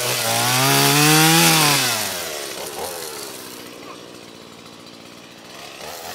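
Small two-stroke chainsaw (Stihl MS 170) revving under throttle, its pitch rising and then falling back, then dropping to a much quieter, steady idle about two seconds in.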